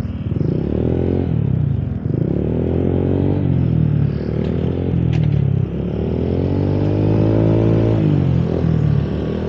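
Honda Click 125i scooter engine and CVT pulling away and accelerating, the revs rising and easing off about four times. Its loose crankshaft nut has just been re-tightened, so the drive now takes up under throttle.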